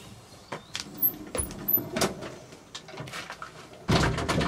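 Scattered light knocks and clicks, then a louder scraping rustle starting about four seconds in.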